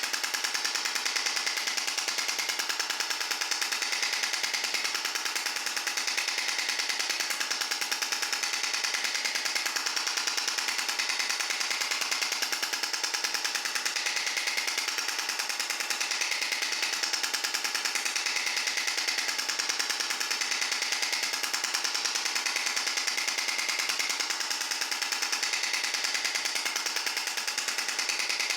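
Extracorporeal shock wave therapy (ESWT) device firing a rapid, evenly spaced train of sharp clicks, unbroken and unchanging in rhythm.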